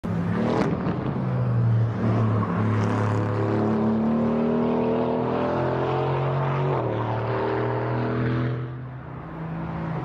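Aston Martin Vantage F1 safety car's twin-turbo V8 running hard on track, a steady engine note with a sharp crack about half a second in and a sudden step in pitch around seven seconds in. It briefly gets quieter near the end.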